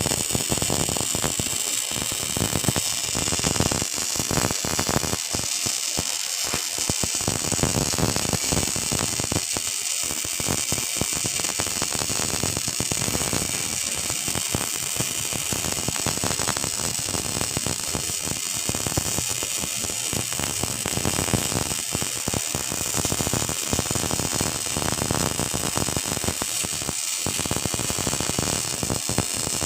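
Electric welding arc crackling and hissing steadily, a dense run of fine irregular crackles, as the long-unused welding machine is tested.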